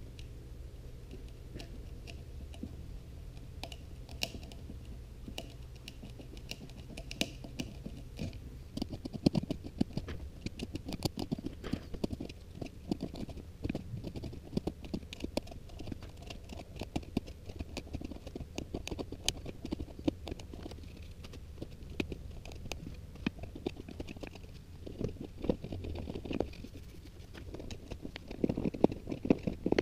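A hand chisel paring the tenon off the base of a pin oak bowl: an irregular run of crackling scrapes and sharp clicks as wood chips break away.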